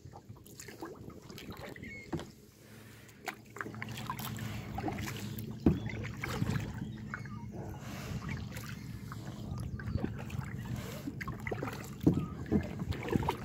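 Water lapping and splashing against a kayak hull, with small irregular knocks and clicks. It grows louder about four seconds in, with a low rumble beneath.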